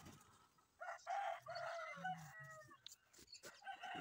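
A rooster crowing once, a drawn-out call of about two seconds starting about a second in.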